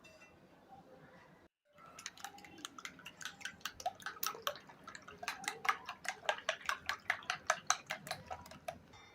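Eggs being beaten with a metal utensil in a bowl: quick, regular clinks against the bowl's side, about four a second, starting a couple of seconds in and stopping just before the end.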